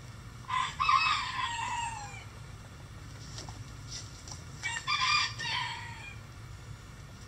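A rooster crowing twice, about four seconds apart, each crow about a second and a half long and falling in pitch at the end.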